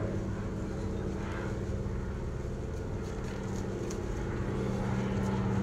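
A steady engine drone, a low hum with its overtones, growing a little louder toward the end.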